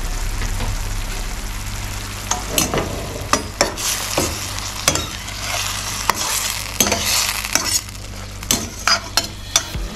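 Sliced vegetables sizzling in oil in a stainless steel frying pan, with a metal slotted spatula scraping and clicking against the pan in many quick strokes from about two seconds in as they are stirred.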